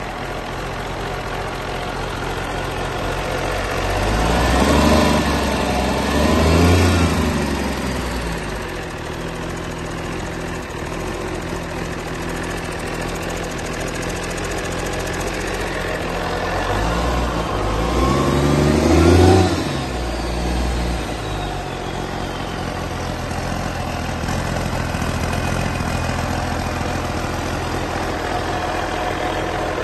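Cummins LTA10 inline-six turbodiesel engine running on its own, idling steadily. It is revved up and back down twice in quick succession about four to seven seconds in, and once more around eighteen to twenty seconds in.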